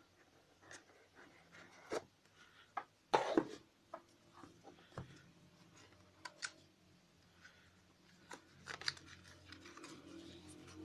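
Cardboard smartphone box and its paper inserts being handled while opening it: scattered rubs, scrapes and light knocks of cardboard and paper, the loudest a scrape about three seconds in.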